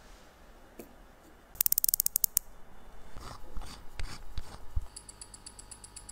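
Steel watch case parts being handled, with a quick run of about ten sharp clicks and then a few scattered knocks. Near the end a Rolex Submariner's movement ticks evenly at about eight beats a second, its 28,800-beat rate, picked up by a timegrapher.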